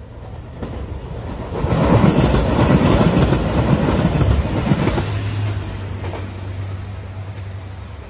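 JR Shikoku 2700 series diesel limited express train passing close by at speed, its wheels rumbling and clacking on the rails. It builds to its loudest over a few seconds, then fades as the train moves away, leaving a low steady hum.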